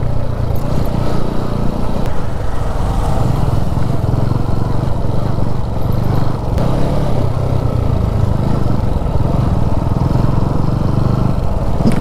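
TVS Apache RTR 200 4V's single-cylinder engine running at low speed on a rough dirt track, a steady low rumble.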